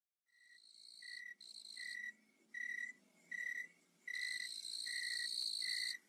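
Crickets chirping in a night-forest ambience: a short, clear chirp repeats about every three-quarters of a second under higher, buzzier trills that come and go and then run on steadily over the last two seconds. The sound is faint.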